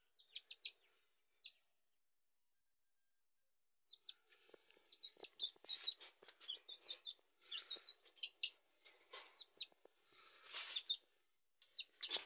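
Young chick peeping: runs of short, high peeps that slide downward. The peeps stop for about two seconds near the start, then come back thicker, mixed with small handling knocks.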